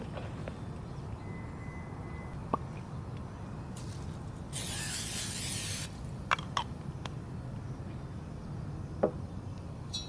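Aerosol cooking spray hissing into a frying pan in one burst of about a second and a half, near the middle. It is followed by a few light clicks and taps.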